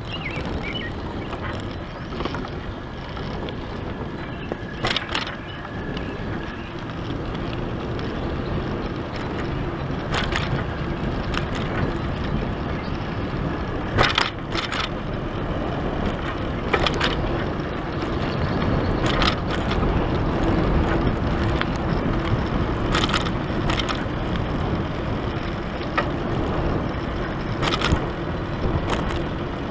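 Bicycle being ridden along a paved path, heard from the handlebars: a steady rumble of tyres and wind, with sharp clicks and rattles from the bike and its handlebar basket every few seconds.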